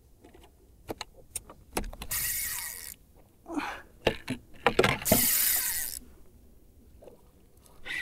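Spinning reel's drag buzzing in two bursts of about a second each as a hooked fish pulls line against the bent rod, with scattered clicks and knocks of handling before and between.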